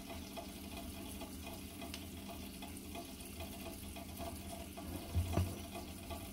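Eggs, tomato slices and ham frying in a skillet, a soft steady sizzle with faint crackles. A dull knock about five seconds in.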